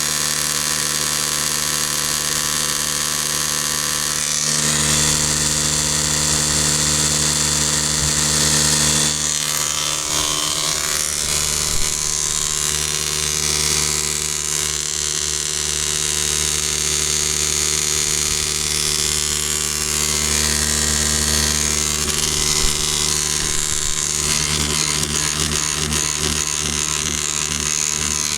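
Backcountry Tornado F2 electric drywasher running: a steady electric motor buzz with a hiss of dry dirt moving through it. The pitch and hiss shift slightly about four seconds in and again around ten seconds.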